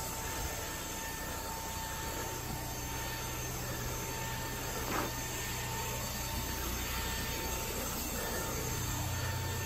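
Carpet pre-spray wand hissing steadily as it sprays the carpet, over a steady low machine drone, with a single short click about five seconds in.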